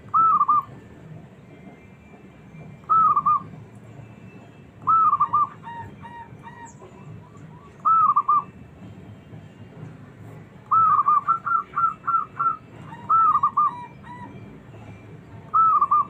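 Zebra dove (perkutut) cooing: about seven short, rippling phrases of quick arched notes, a few seconds apart, with a longer run of notes a little past the middle.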